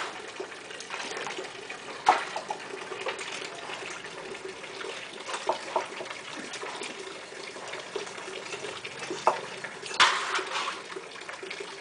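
Water running from a rubber hose and splashing into a large stainless-steel pot: a steady gush, with a few louder moments about two seconds in and near ten seconds.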